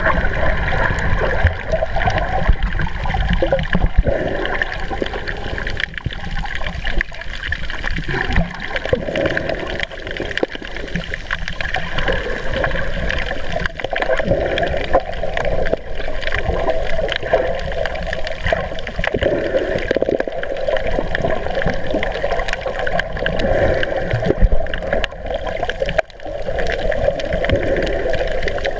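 Muffled water sloshing and gurgling heard from underwater, over a steady low rumble.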